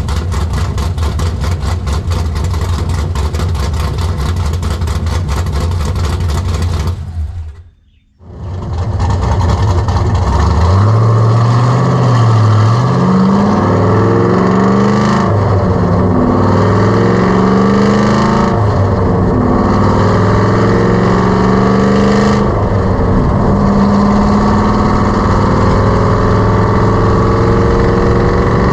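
2004 Pontiac GTO's cammed Texas Speed 408 V8 idling with a choppy, evenly pulsing lope; after a short break, the engine speed rises and falls several times, then holds steady.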